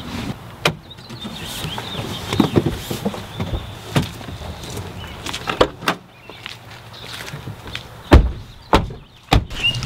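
Toyota Camry's doors and trunk being opened and shut while boxes are handled: a series of clunks and knocks, the loudest a heavy door slam about eight seconds in, with two more knocks just after it.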